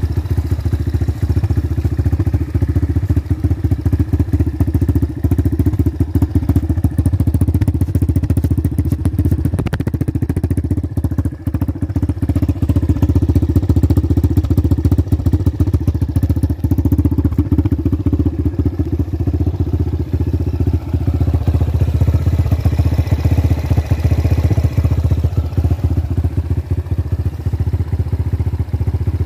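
Apollo DB36 250 dirt bike's 250cc single-cylinder four-stroke engine idling steadily with a fast, low putter.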